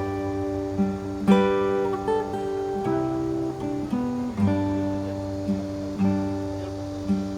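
Acoustic guitar music: plucked notes that ring on over a slowly changing low bass note.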